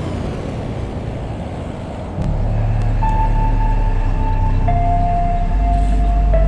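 Background music at a change of track: a noisy, sweeping transition, then about two seconds in a new electronic track starts with a deep bass and long held synth notes.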